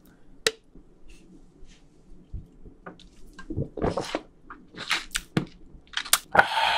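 Beer swallowed in gulps from a can, close-miked. There is a sharp click about half a second in, then several short wet swallows and mouth sounds, ending in a breathy exhale.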